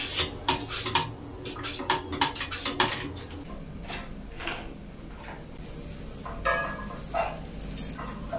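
A nonstick frying pan on a portable gas stove knocking and clattering as a foil-wrapped block of butter is rubbed around it to grease it: a quick run of knocks over the first three seconds, then quieter handling with a short rustle of the foil wrapper about six seconds in.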